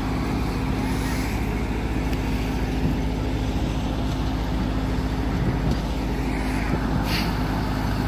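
Combine harvester's diesel engine and machinery running steadily while it unloads compressed wheat straw from its straw hopper, with a short hiss about seven seconds in.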